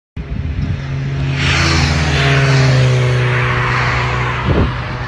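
A motor vehicle passing by: its engine note and road noise swell about a second and a half in and fall slowly in pitch as it moves away, over a steady low hum. A brief knock comes near the end.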